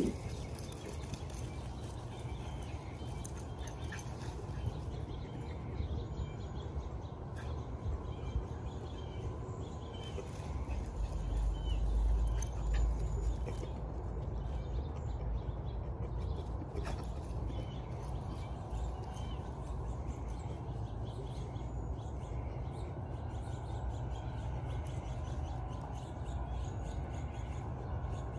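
Steady outdoor background noise with faint, scattered bird chirps. A low rumble swells from about ten to thirteen seconds in.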